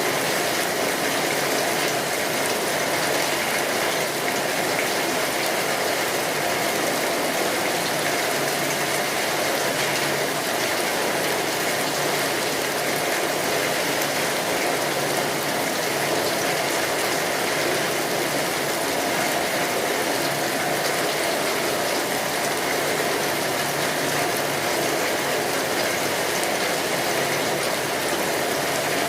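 Steady rain falling on a tin roof, with the crackle of a wood fire mixed in.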